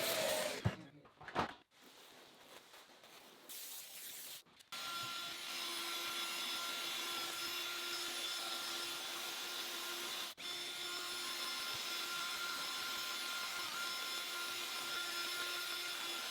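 Electric motor of a cleaning machine running steadily with a whine and rushing air, starting about five seconds in after a few quiet clicks, broken for an instant near ten seconds.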